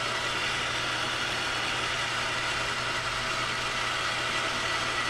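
Metal lathe running steadily through a turning pass, its insert tool taking a cut of 14 thousandths off a steel part.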